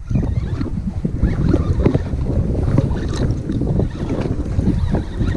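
Wind buffeting the microphone: a steady low rumble broken by many irregular crackles.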